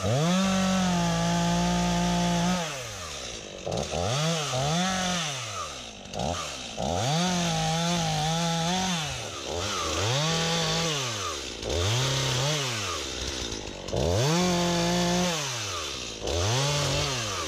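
STIHL MS 251 C two-stroke chainsaw cutting up a felled cherry tree: revved to full throttle and held through each cut, then dropping back to idle, about eight times, with the longest cuts near the start and in the middle.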